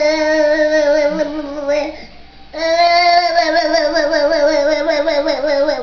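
A voice holding two long, wavering, sung notes, the first breaking off about two seconds in and the second starting about half a second later.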